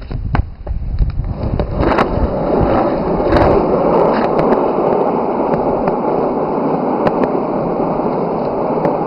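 Skateboard wheels rolling along a road. The rolling noise builds over the first three seconds as the board gathers speed, then holds steady, with a few sharp clacks in the first three seconds.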